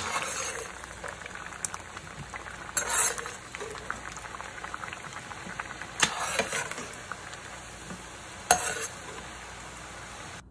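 Salted water bubbling at a steady boil in a nonstick pan. A slotted metal spoon clinks and scrapes against the pan several times, loudest about 3, 6 and 8.5 seconds in, as potato slices are scooped out.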